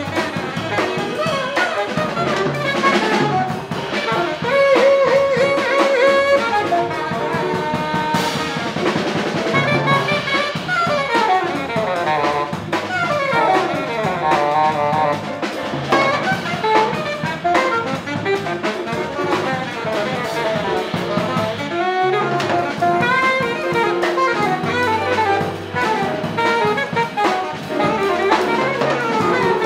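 Live small-group jazz: an alto saxophone solos in fast runs, with one held note about five seconds in, over a drum kit and low bass notes.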